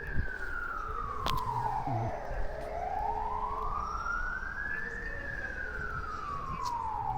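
An emergency vehicle's siren wailing, its pitch climbing and falling slowly, about one rise and fall every five seconds.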